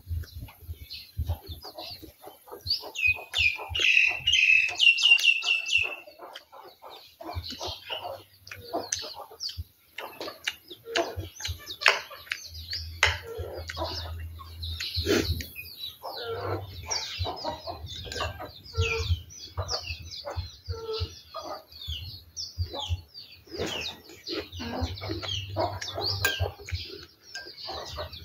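Birds chirping and chickens clucking, with a loud run of rapid, evenly repeated chirps about three to six seconds in. Underneath, close eating sounds: chewing and a spoon clicking on a plate.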